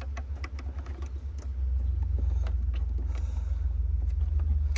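Scattered light clicks and knocks from a camera and its mount being handled and repositioned, over a steady low rumble.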